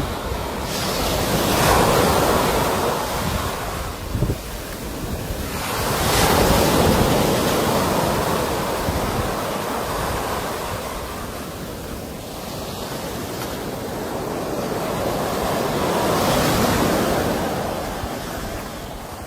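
Sea waves breaking and washing in, swelling three times: about two seconds in, again around six seconds, and once more near the end.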